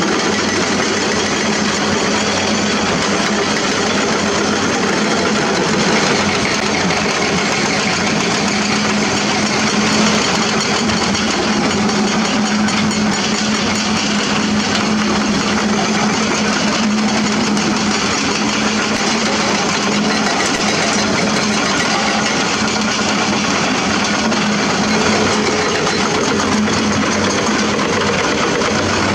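Diesel engines of hydraulic crawler excavators running steadily, with a constant hum.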